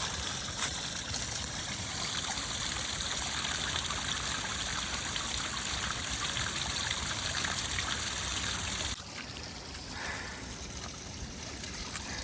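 Water trickling and pouring out of a drainage pipe in a small pipe-fed waterfall, a steady splashing hiss that drops to a quieter level about nine seconds in.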